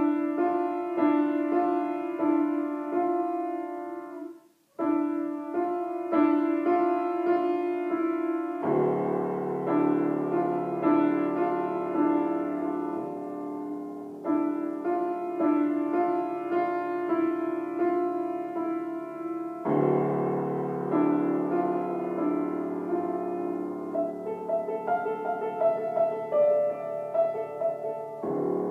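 Piano music from the film's score. It starts suddenly, breaks off briefly about four seconds in, then grows fuller with low notes added from about nine seconds in.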